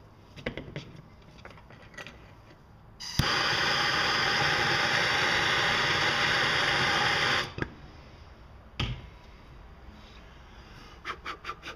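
Small handheld torch lighting with a click and burning with a loud, steady hiss for about four seconds before it is shut off. A knock and a few light clicks of handling follow.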